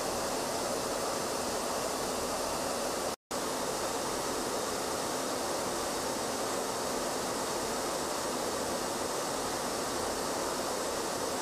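Steady, even rushing of airflow and engine noise heard aboard an aircraft in flight, with a split-second dropout to silence about three seconds in.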